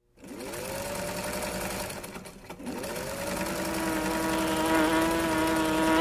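Electric sewing machine running: the motor whines up to speed, stops briefly about two seconds in, then starts again and runs steadily, getting louder toward the end.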